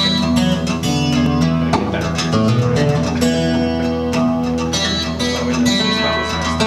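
Guitar music from a vinyl record playing through Tidal Sunray floor-standing loudspeakers: a picked guitar passage with sustained notes and no singing.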